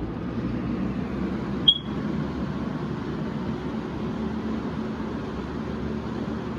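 Lakewood P223 20-inch box fan running, a steady rush of air over a low motor hum that builds slightly in the first second. A single sharp click with a brief ring comes about two seconds in.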